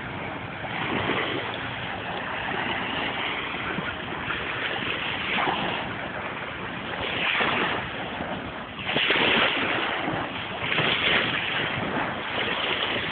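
Small sea waves washing onto a sandy beach, a steady wash that surges louder several times in the second half as the waves come in.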